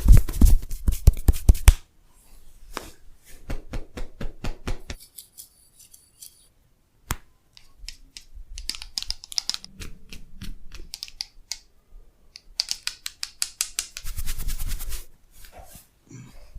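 Head and neck massage sounds: fast runs of hand taps, rubbing and clicking, loudest and heaviest at the start, in short cuts separated by abrupt moments of silence. A lone sharp crack about seven seconds in.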